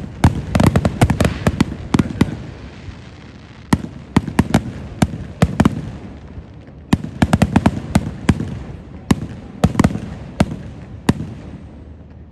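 Fireworks going off: rapid volleys of sharp bangs in clusters with short pauses between them, thinning out near the end.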